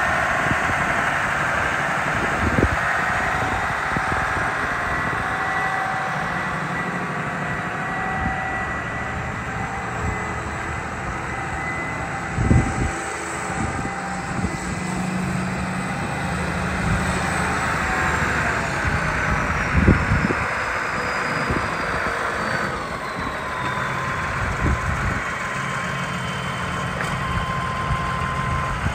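Massey Ferguson 6170 tractor's diesel engine running as the tractor drives off, with a steady whine over the engine note. The high whine slides down in pitch about two-thirds of the way through, and a few sharp knocks stand out.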